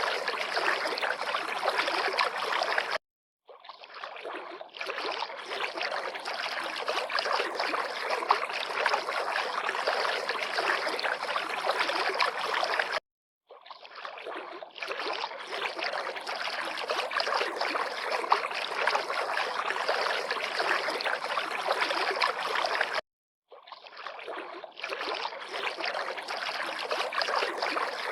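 River water lapping and flowing in a steady rush, cutting out to silence for a moment three times, about ten seconds apart, and fading back in each time.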